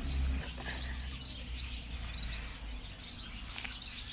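Small birds chirping and twittering, many short high chirps in quick succession, over a low steady background rumble.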